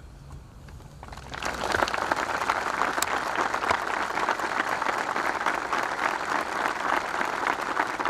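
Crowd applauding: the clapping starts about a second in, swells quickly and goes on steadily.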